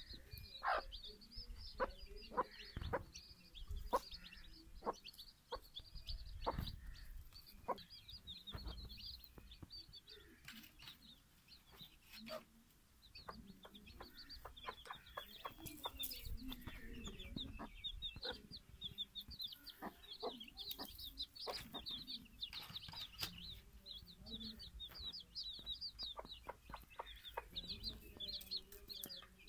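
A hen clucking while her chicks peep almost nonstop in quick, high chirps. Scattered sharp taps come through as well, and they are the loudest sounds.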